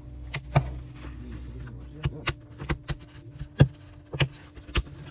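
A series of sharp, irregular clicks and taps of small hard objects, about a dozen spread unevenly, over a faint steady hum.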